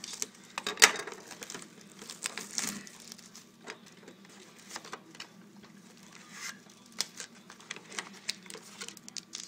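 Plastic shrink-wrap being cut and peeled off a cardboard box, crinkling and crackling in short irregular bursts, with a sharp crackle about a second in.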